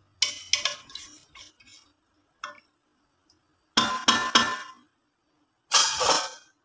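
Kitchenware clinking and clattering against a cooking pot in several short bursts: a run of sharp clinks near the start, a single knock, then two louder clusters of clatter later on.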